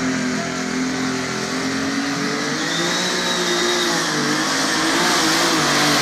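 Competition pulling tractor's engine running flat out as it drags a weight-transfer sled. The pitch wavers up and down under the load, and a rushing noise builds toward the end as the front wheels lift.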